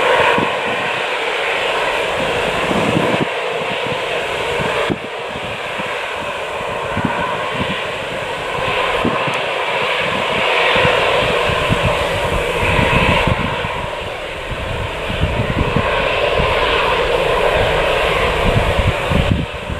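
Jet airliner engines running, a steady loud rush with an uneven low rumble beneath it. The sound drops abruptly about five seconds in, then swells again.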